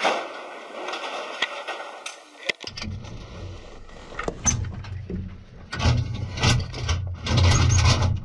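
Tank shells being handled and seated in a tank's autoloader carousel: irregular metal clanks and knocks. From about three seconds in, these sit over the low, steady drone of the tank's running engine, loudest near the end.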